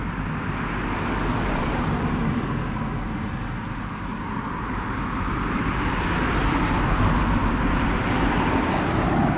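Steady rushing wind noise on the microphone, swelling and easing slowly.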